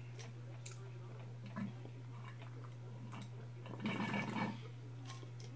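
A short stretch of drinking from a stainless-steel tumbler, about four seconds in, over a steady low hum.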